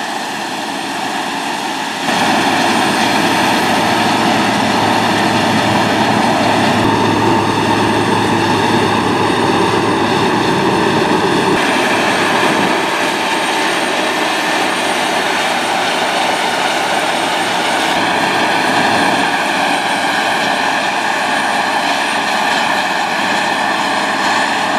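Heavy farm machinery running steadily, a loud engine and mechanical rumble. It steps up suddenly about two seconds in and shifts in tone twice later on.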